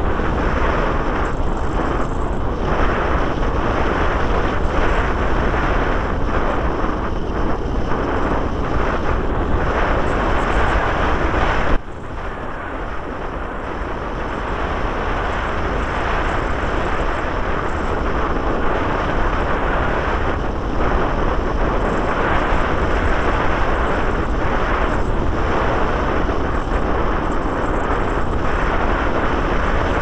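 Rushing wind buffeting the microphone in flight under a paraglider, steady and loud; it drops suddenly about twelve seconds in, then builds back up.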